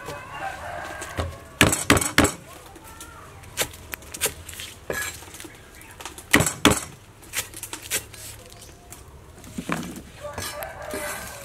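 Steel cleaver chopping lemongrass and garlic on a wooden cutting board: sharp knocks in uneven clusters, loudest about two seconds in and again around six and a half seconds.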